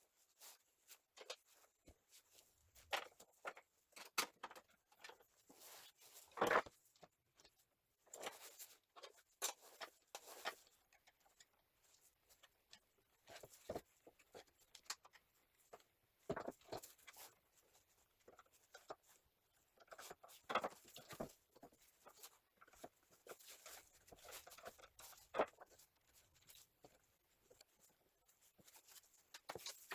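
Scattered small clicks, taps and scrapes of hand work on an angle grinder's housing: a screwdriver on the back-cover screws and the cover being handled and lifted off.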